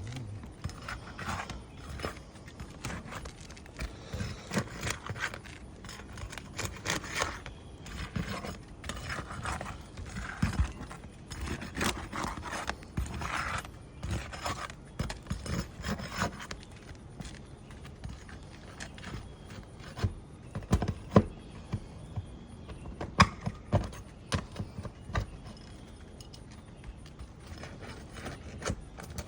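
A roof snake being worked under asphalt shingles, scraping and knocking as it pries them loose and rips at their nails. The scraping runs dense through the first half, then gives way to a few sharp knocks.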